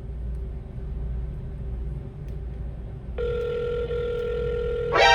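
From about three seconds in, a steady call tone from the damaged iPhone 7's speaker as it places a call on its own. Right at the end a louder tone with many overtones cuts in.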